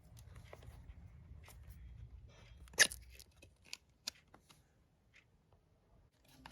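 Small cardboard Apple power-adapter box being opened by hand: scattered rustles and light clicks as the paper seal strip on the back is pulled off, with one sharp snap about three seconds in.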